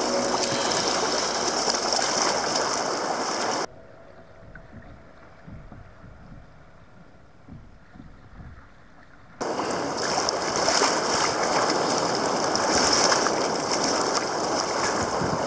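Choppy sea water rushing and splashing around a sea kayak's bow, with wind on the microphone. It drops much quieter for about six seconds in the middle, then comes back at full strength.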